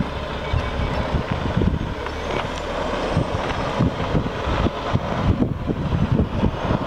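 Peterbilt 389 truck tractor's diesel engine running as the truck drives slowly across gravel.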